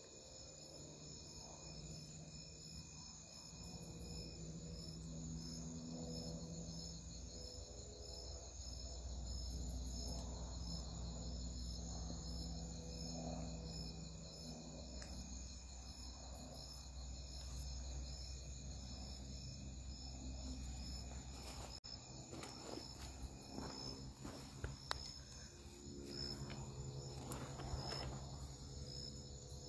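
Crickets chirping in a steady night chorus. In the last several seconds there are scattered scuffs and knocks.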